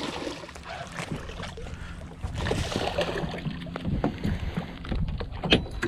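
A hooked redfish splashing and thrashing at the surface beside a small boat, with water sloshing at the hull. A few sharp knocks come near the end.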